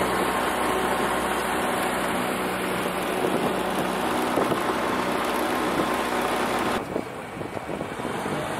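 Boat motor running steadily under way, with water rushing past the hull. A little before the end it cuts abruptly to a quieter stretch of water and wind noise.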